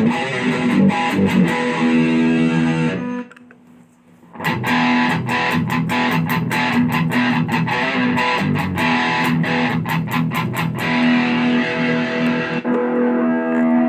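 Electric guitar played through a BOSS OD-20 Drive Zone overdrive/distortion pedal, with picked notes and chords carrying a driven, distorted tone. The playing stops for about a second, three seconds in, then starts again. The top end turns darker near the end.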